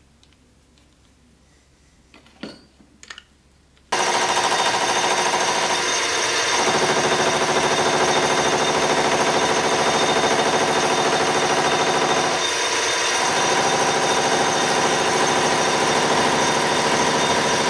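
Two short scrapes, then a metal lathe starts up suddenly about four seconds in and runs steadily, turning a metal pommel blank against a cutting tool.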